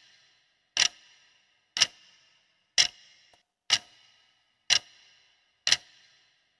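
Clock-tick sound effect counting down a quiz timer: one sharp tick about every second with a brief ringing tail, six ticks in all.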